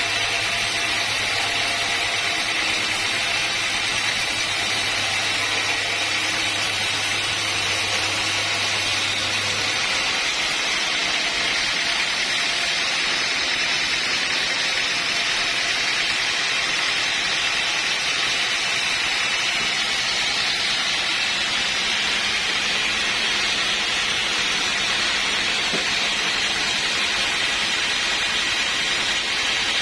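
Steady machine noise that runs unbroken, strongest in its upper hiss; a low hum underneath stops about ten seconds in.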